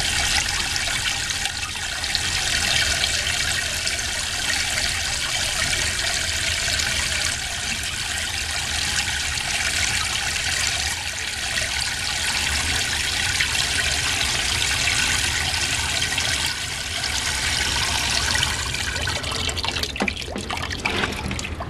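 Water from a garden-hose spray nozzle splashing steadily into the smoker's metal water pan as it is filled, tapering off near the end.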